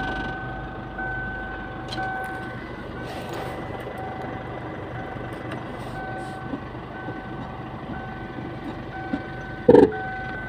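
Electronic beeping: a steady tone that pulses on and off about once a second, over a low engine hum. A short, loud vocal sound comes near the end.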